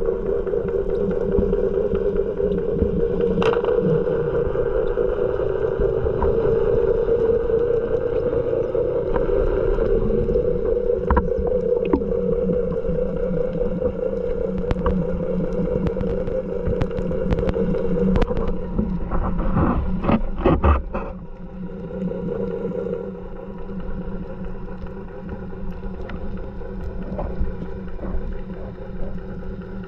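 Muffled underwater sound: a steady drone of a boat motor carried through the water, with scattered sharp clicks, growing quieter about 21 seconds in.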